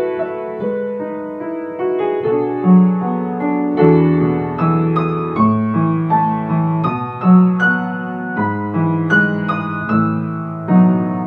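Calm piano music: a melody of single notes over slowly changing low notes.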